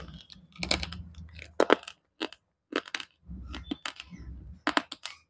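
Slate pencil being bitten and chewed close to the microphone: irregular sharp crunches in quick clusters with short gaps, with a quick run of about four near the end.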